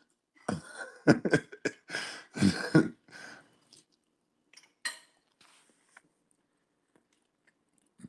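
A person coughing: a quick run of short, harsh coughs in the first three seconds, and one more about five seconds in.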